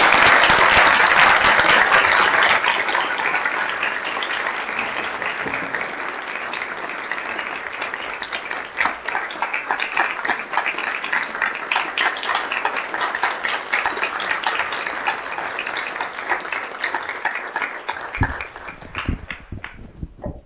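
Audience applauding, loudest at the start and slowly thinning out before it stops near the end.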